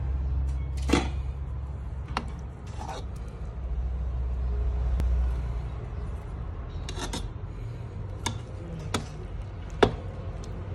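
Pan of tilapia and vegetables steaming on an induction cooktop: a low rumble, louder over the first half, with a handful of sharp clicks and light knocks.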